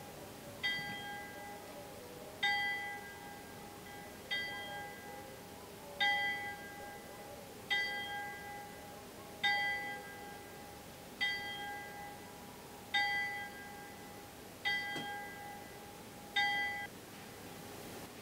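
A single bell in a wooden bell tower, rung by hand with a rope, sounds about ten strokes at an even, unhurried pace, roughly one every second and three quarters. The same ringing tone comes with each stroke and fades slowly between them. The ringing stops abruptly shortly after the last stroke near the end.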